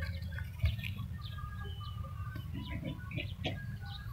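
Scattered short bird chirps and brief whistles over a steady low rumble.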